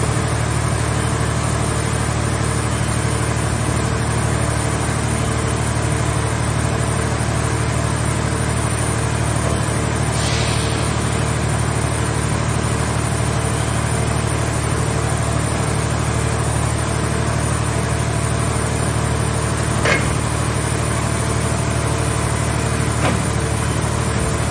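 Hydraulic power unit of a scrap car baler running with a steady low hum as its grab crane is worked. Near the end, two short sharp metallic clicks.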